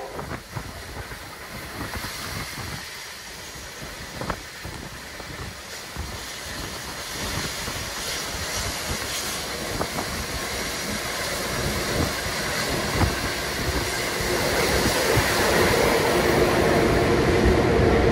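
A train running, its rumble and rail noise building steadily louder, with a steady tone like a horn or whistle chord creeping in faintly near the end.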